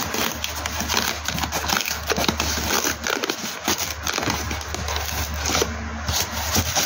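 Plastic packing tape being peeled off the seams of a styrofoam shipping box, a continuous run of irregular crackling and ripping.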